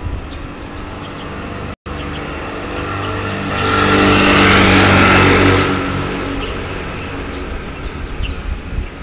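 A motor vehicle driving past, its engine sound growing to a loud peak about four to five seconds in and then fading away. It is picked up by a small high-sensitivity monitoring microphone, with the top of the sound cut off, and the audio drops out completely for a moment near two seconds in.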